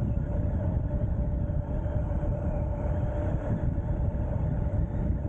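Wind buffeting a helmet-mounted camera's microphone while riding an Ariel Rider X-Class 52V electric bike at road speed: a steady, rough low rush of air and road noise with a thin, steady whine underneath.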